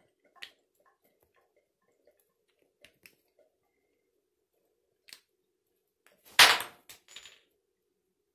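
Faint, scattered clicks of the plastic and brass parts of a Moen 1225 shower valve cartridge being turned in the hands. About six seconds in there is a brief loud rushing noise, then a smaller one.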